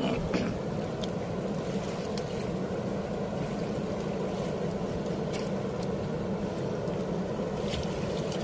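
Steady rushing of a fast river current against a small wooden boat's hull, with a few faint clicks.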